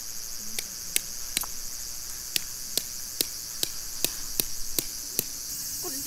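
Tent pegs being hammered into the ground: sharp taps at about two and a half a second, three in a row and then, after a short pause, eight more. Underneath, insects keep up a steady high-pitched drone.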